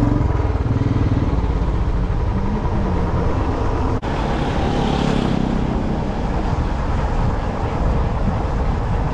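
Motorcycle engine running as the bike rides along, with a brief dropout about four seconds in.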